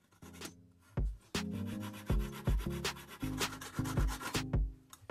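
Hand hacksaw cutting through a thin aluminium tube with back-and-forth rasping strokes, over background music with a steady beat.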